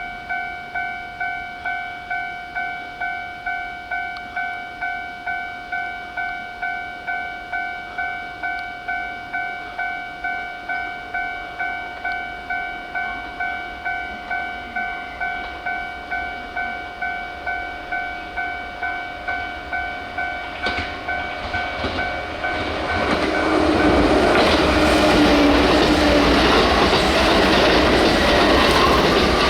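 Level-crossing warning bell on the Kintetsu Nara Line ringing in a steady repeated clang, a bit under two strokes a second. About 23 seconds in, a train reaches the crossing and its passing rumble and wheel clatter swamp the bell.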